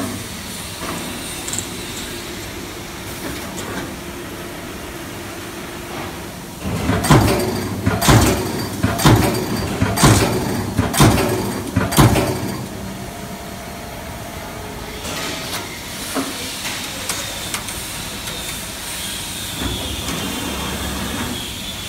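Hydraulic CNC turret punch press at work: a steady hum, then a run of about six heavy punch strokes roughly one a second midway, followed by a quieter stretch of light clicks and hiss.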